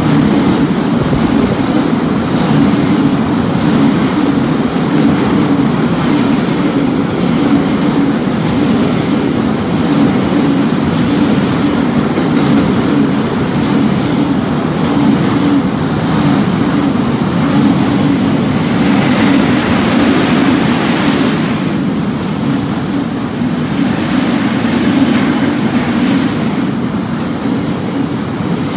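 A freight train of empty container flat wagons running fast past a station platform: a steady loud rumble and clatter of wheels on rail. A brighter hiss of rail noise rises for a couple of seconds about two-thirds of the way through.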